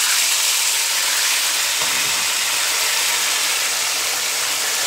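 Whole fish frying in very hot oil in a frying pan: a loud, steady sizzle.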